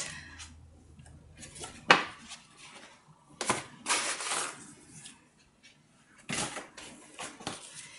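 Sticker sheets and their packaging being handled by hand: paper and plastic rustling and crinkling in a few short bursts, with a longer rustle about three and a half seconds in.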